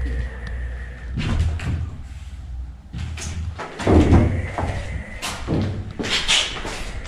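Knocks and thuds of footsteps and handling on debris, the loudest about four seconds in, over a steady low drone with a thin high tone: the strange noise that the explorers take for a growling animal.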